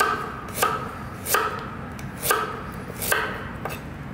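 Kitchen knife chopping fresh ginger into coarse pieces on a cutting board. About six unhurried, evenly spaced chops, roughly one every three-quarters of a second, each with a short ring.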